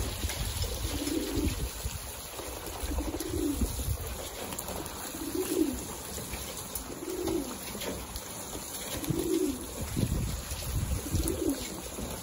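Racing pigeons cooing, a low coo about every two seconds, over light water splashing as the flock bathes in a shallow tray.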